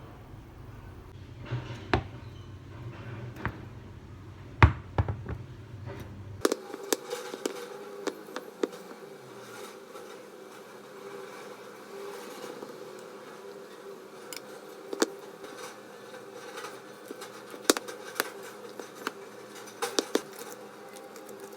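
A steady buzzing hum with scattered sharp clicks and knocks, changing abruptly about six seconds in as a deeper rumble drops out.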